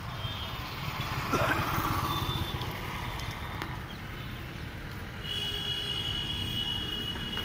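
Outdoor road traffic noise: a steady low rumble of vehicles, swelling a little over a second in. A high steady whine joins about five seconds in.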